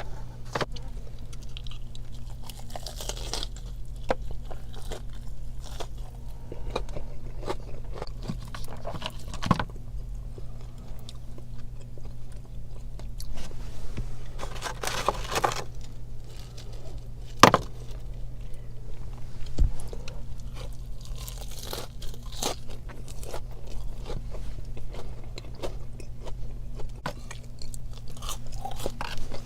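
Close-miked eating of crispy fried fast food: irregular crunching bites and chewing with wet mouth clicks, one especially sharp crunch about halfway through, over a steady low hum.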